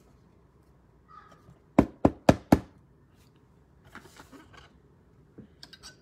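Four sharp knocks in quick succession, about a quarter second apart, as a clear plastic trading-card stand is tapped on the tabletop while a card is set in it, followed by softer handling noise.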